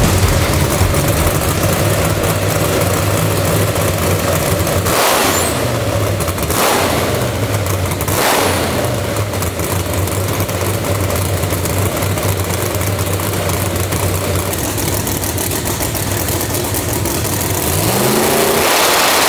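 Supercharged Noonan 565ci Hemi drag-race engine with a ProCharger F-4X, running at a steady lumpy idle on the hub dyno. It gives three short rushes of noise between about five and eight seconds in, and its revs climb once near the end.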